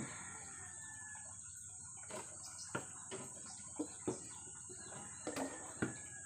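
Scattered light clicks and knocks, about seven in the space of four seconds, from things being handled at a workbench. Under them are a steady high hiss and a couple of faint bird chirps.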